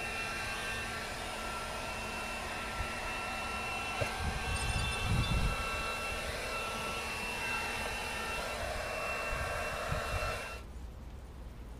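Handheld hot-air blower running steadily with a faint whine, used to warm vinyl film as it is worked onto a car door; a few low bumps about four to five seconds in, and the sound cuts off suddenly near the end.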